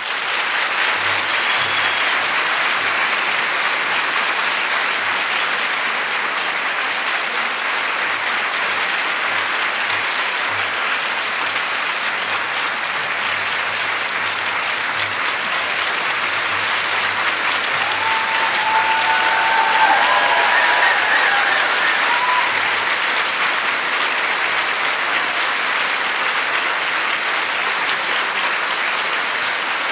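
A large audience applauding steadily, swelling slightly about two-thirds of the way through.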